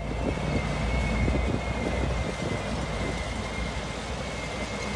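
Heavy machine's engine running with a steady low rumble, over a thin steady high-pitched whine.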